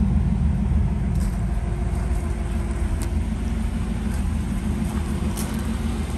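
1967 Chevrolet Camaro SS's engine idling with a steady low rumble.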